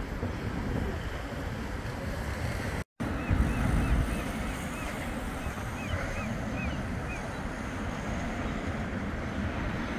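Wind rumbling on the microphone over a steady rushing outdoor noise. The sound drops out briefly about three seconds in, and a few seconds of short, high chirps follow.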